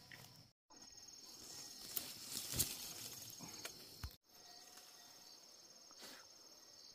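Insects chirring in a steady, high, even drone, with a few knocks and rustling in the middle. The sound drops out twice briefly, about half a second and about four seconds in.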